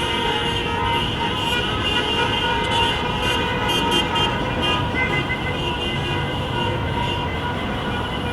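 Many car horns honking over one another, overlapping toots starting and stopping continually, with traffic noise beneath: a convoy of cars honking in celebration.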